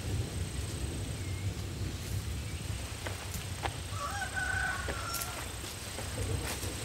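A rooster crowing once, starting about four seconds in, over a steady low rumble.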